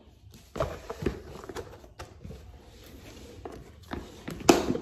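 Handling noise from Blu-ray disc cases and box-set packaging on a table: scattered light clicks and taps, with a louder knock near the end.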